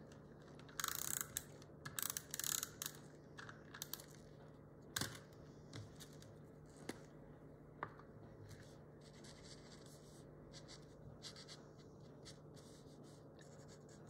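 Faint crinkling and peeling of paper stickers being handled, in short bursts over the first few seconds, with a few light taps around the middle.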